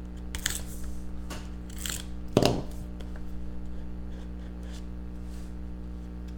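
Utility knife slitting the seals on a small cardboard trading-card box: a few short scratchy cuts, the loudest about two and a half seconds in, then faint light crackling as the box is opened.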